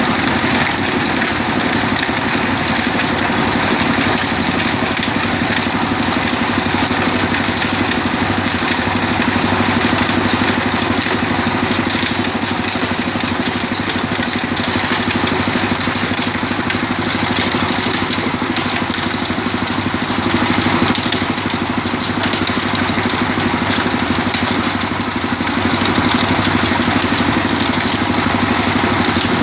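Stone-crushing machine for turning rock into fine sand, running steadily with an even, unbroken machine noise.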